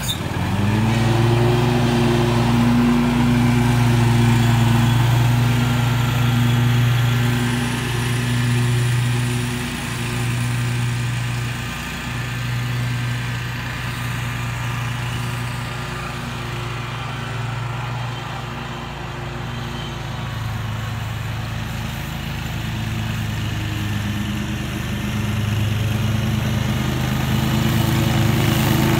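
Scag Tiger Cat II zero-turn mower running steadily with its blades cutting grass. The engine note holds a steady pitch; it is loudest close by at first, drops lower in the middle and grows louder again near the end.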